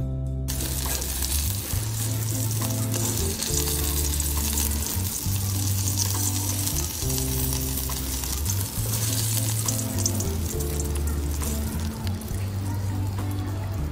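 Hot oil sizzling steadily as small potatoes and onions fry in a kadai, starting about half a second in. Background music with long held low notes runs underneath.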